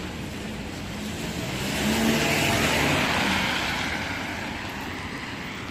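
A car drives past close by on a wet street, its tyres hissing on the water. The hiss with a low engine hum rises to a peak about two to three seconds in, then fades as it moves away.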